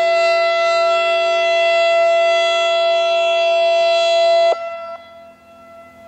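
ASC I-Force electronic siren sounding a loud, steady, multi-pitched tone between repeats of its voice test message. The tone cuts off abruptly about four and a half seconds in, and a faint trace of it lingers afterward.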